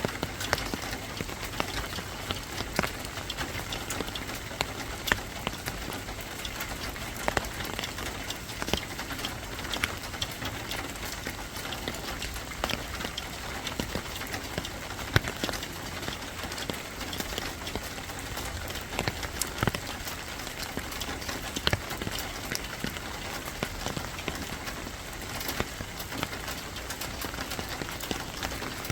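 Steady rain falling, with many irregular sharp drops tapping on a surface.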